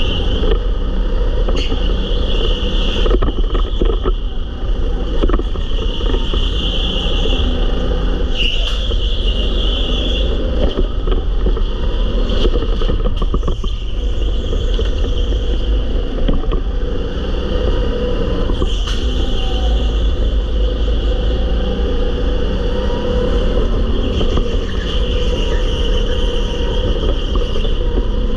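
Go-kart running at speed around an indoor track, heard from a camera mounted on the kart: a steady, loud running noise with heavy low rumble and a constant high whine, broken by occasional sharp clicks and knocks.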